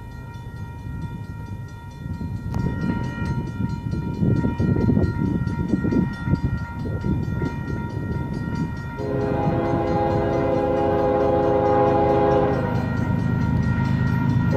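Union Pacific freight locomotive approaching with a low rumble that grows louder, then its air horn sounding from about nine seconds in, one long blast with a short break near the end.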